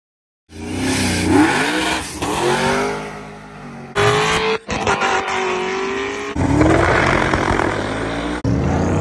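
Car engines revving, the pitch rising and falling, in several short clips cut abruptly one after another.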